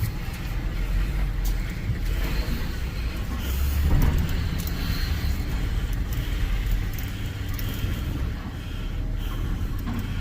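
Truck engine running as the truck drives slowly onto a weigh scale, a steady low rumble that swells briefly about four seconds in.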